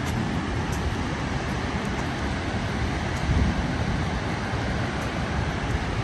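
Steady rushing roar of the Gullfoss waterfall, with uneven low buffeting from wind on the microphone.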